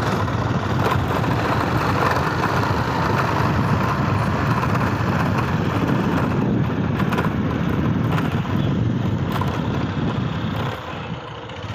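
Motorcycle engine running steadily while being ridden, easing off briefly near the end.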